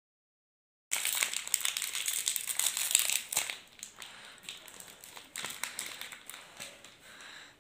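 Plastic snack wrapper with a silvery lining, a Choco-Pie pack, crinkling as it is torn and peeled open by hand. It starts about a second in, loud for a couple of seconds, then goes on softer with scattered crinkles until it cuts off near the end.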